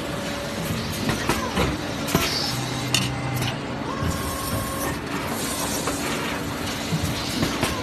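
Machinery din from running injection moulding machines and a conveyor belt, with scattered sharp clicks and clinks.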